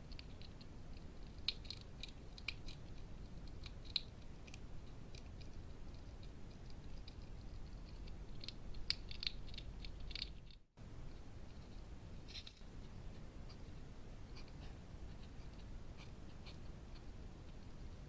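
Hedgehog eating from a food dish: irregular crisp crunching and clicking chews, coming in quick clusters with gaps between them.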